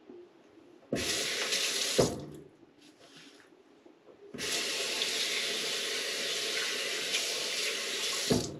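Bathroom tap running into a sink twice: a short burst about a second in, then about four seconds of steady running. Each run ends with a sharp knock.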